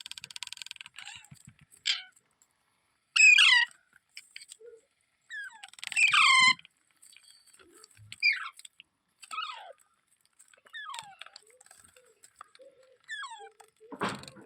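Ringneck parrot giving a series of short shrill calls, each sliding sharply down in pitch. The two loudest come about three and six seconds in, and fainter ones follow every second or so.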